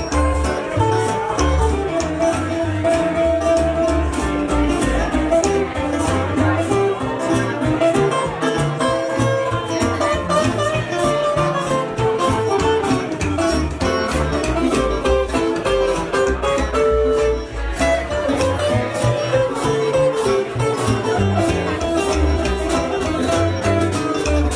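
Live band playing an instrumental passage: strummed and picked guitars over an upright bass and a drum kit keeping a steady beat.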